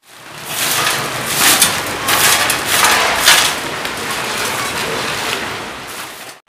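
Plastic trash bags and litter rustling and crinkling, with a broom scraping, as rubbish is gathered up into a sack; irregular crackles over a steady rustle, fading in at the start and out near the end.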